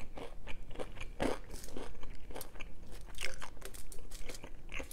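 Close-up crunchy chewing of a baked crinkle fry, a run of short, crisp crunches.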